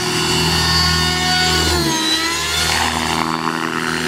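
Align T-Rex 600E electric RC helicopter in flight: a steady low rotor buzz under the whine of its electric motor and gears. The pitch dips briefly about two seconds in and then climbs again as the helicopter manoeuvres.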